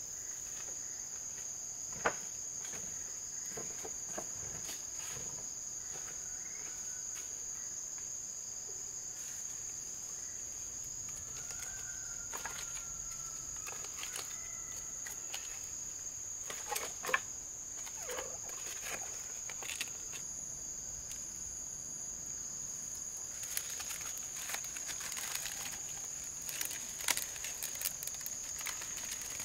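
Steady high-pitched insect drone of rainforest crickets. Scattered knocks of bamboo and wood are being handled, followed near the end by a burst of small crackles and snaps from dry bamboo kindling at a fire being lit.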